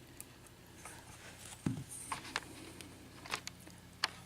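Faint, scattered light clicks and taps as small lock pins and springs are handled and set out on a work surface, over a low steady hum.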